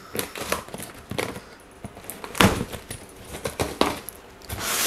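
Cardboard box and packing tape being handled: scattered crinkles, light taps and a couple of sharper knocks, then a loud rasp of packing tape being pulled up starting near the end.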